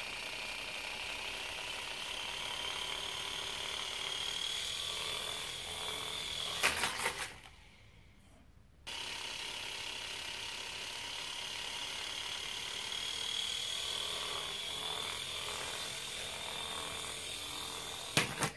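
Air Hogs Twin Thunder toy tandem-rotor RC helicopter, its small electric motors and twin rotors whirring with a steady high whine. About seven seconds in it clatters and the motors cut out for a second or two, then spin up again. Near the end it clatters once more.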